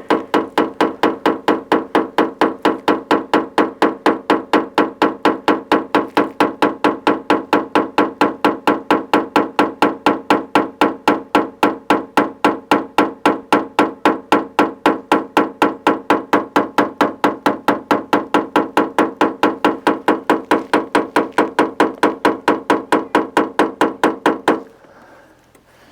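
Quick, even tapping on a car's sheet-metal quarter panel with a PDR tap-down tool and hammer, about four taps a second, each with the same ringing tone. The technician is knocking down the raised metal around a dent while pushing from behind, so the dent shrinks. The tapping stops suddenly near the end.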